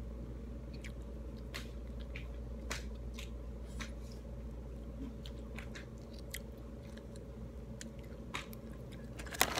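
Someone chewing pomelo: scattered small wet clicks and smacks from the mouth over a steady low hum, with a louder click near the end.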